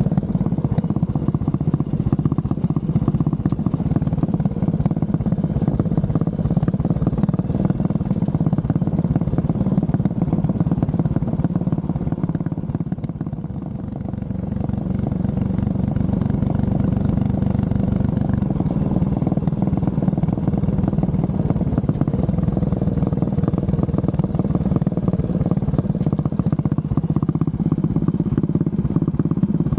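Honda CB400SS single-cylinder engine running under way. It eases off and softens about 13 seconds in, then picks up again.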